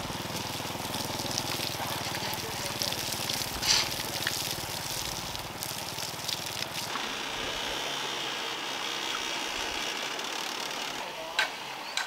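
Water flowing steadily, with a low mechanical hum under it that stops about seven seconds in.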